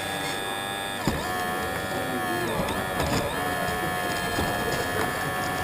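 Scratch-built RC excavator's small electric motors and hydraulic pump whining steadily, with a sharp click about a second in.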